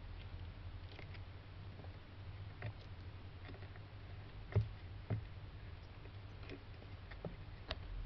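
A small Hermann's tortoise clambering over a ramp of wooden sticks: faint scattered clicks and light knocks, two louder knocks about halfway through, over a steady low hum.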